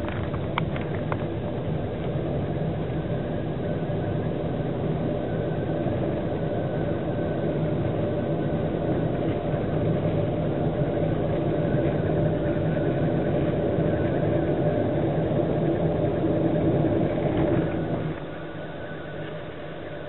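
Car running, a steady engine and road noise with a few held tones; it drops noticeably quieter about eighteen seconds in.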